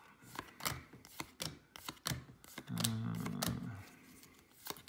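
Baseball cards being thumbed through one at a time in a hand-held stack: short crisp card flicks, about two or three a second. A low hum from a person is heard briefly about three seconds in.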